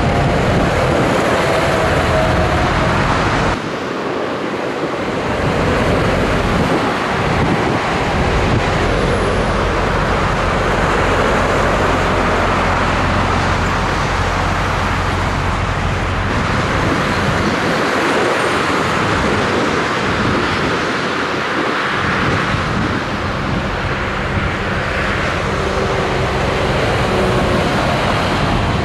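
Motorway traffic, with heavy trucks including Scania tractor units and cars passing at speed: a steady rush of tyre and engine noise over a low engine drone. The level drops suddenly about three and a half seconds in.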